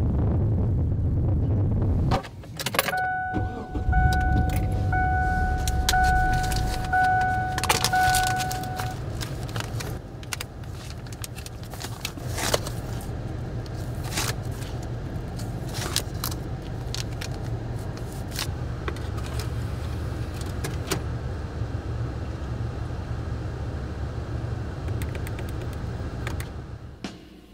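Inside a Kia car, keys jangle and a dashboard warning chime dings about once a second for several seconds, over a steady low engine hum. Scattered clicks follow as a CD case is handled and the radio's buttons are pressed.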